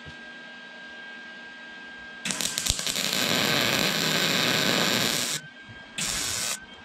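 Lincoln Easy-MIG 140 welder's cooling fan running with a steady whine, then the MIG arc strikes about two seconds in and crackles and hisses through a weld of about three seconds on steel plate, followed by a short second burst of about half a second near the end. The welder is on its third heat setting, the second highest.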